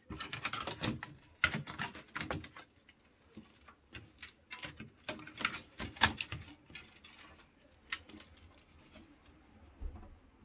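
Hands fitting a Wi-Fi antenna and its cables to a desktop PC: irregular light clicks, taps and rattles of small plastic and metal parts, busiest in the first few seconds and thinning out toward the end.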